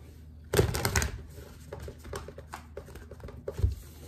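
A deck of oracle cards being shuffled and handled by hand: a quick run of card flicks and rustles about half a second in, then lighter card clicks, and a dull thump near the end.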